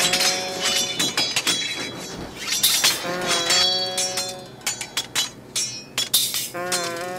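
A looping track of rapid metallic and glassy clinks. A short low tonal phrase, bending up at its start, comes back about every three and a half seconds.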